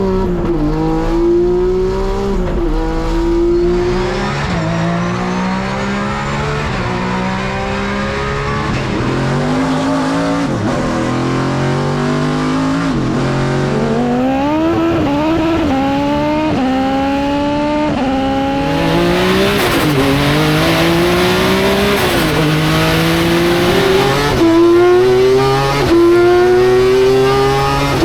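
Racing car engines accelerating hard, the pitch climbing and then dropping sharply at each gear change, through a long series of upshifts.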